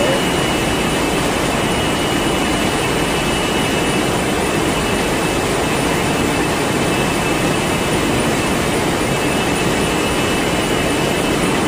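Steady, loud machine noise with a constant high whine running through it and no pauses.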